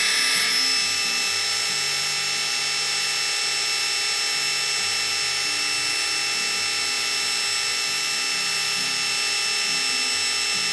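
Electric drill running steadily at constant speed, turning a priming shaft that drives the oil pump of a Chrysler 440 big-block engine, pre-lubing the engine: the oil galleries are filled and oil is coming up through the lifters under good pressure.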